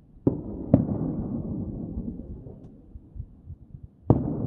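Aerial fireworks shells bursting: two booms about half a second apart, a low rolling echo after them, then another boom near the end.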